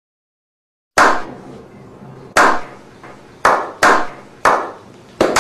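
A slow clap: single hand claps with a ringing tail, the first about a second in after silence, then spaced more than a second apart and coming quicker near the end.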